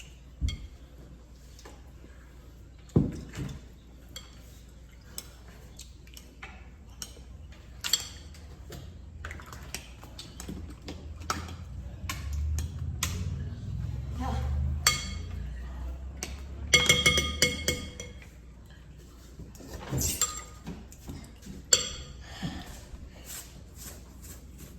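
Kitchen dishes, pots and utensils clinking and knocking at irregular moments. About seventeen seconds in there is a louder run of metal strikes that leave a ringing tone.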